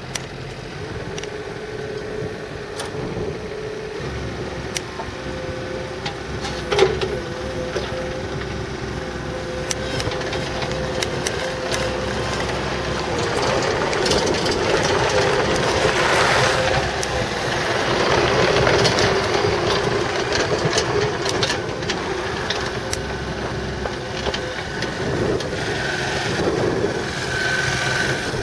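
Kubota KX61-2 mini excavator's diesel engine running just after start-up, growing louder from about halfway in, with scattered sharp clanks and knocks.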